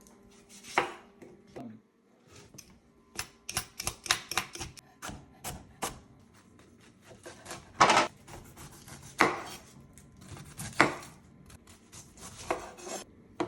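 Knife chopping produce on a cutting board: irregular sharp cuts, with a quick run of strokes in the middle and a few heavier chops later.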